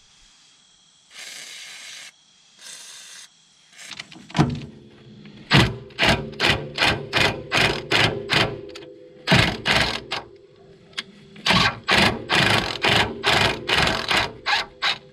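Aerosol spray can hissing in two short bursts onto the strut bolts, then a long run of metallic clacks from hand tools on the bolts, two or three a second, with a ringing tone under them and a short break partway through.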